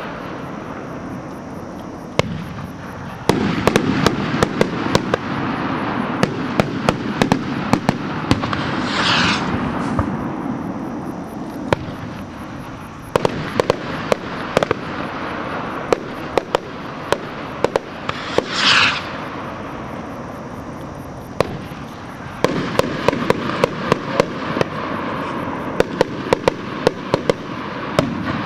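Hand-made skyrockets going off in a fireworks display: a continuous rushing, crackling noise broken by many sharp bangs of bursting shells. A falling whistle sounds twice, about nine and nineteen seconds in.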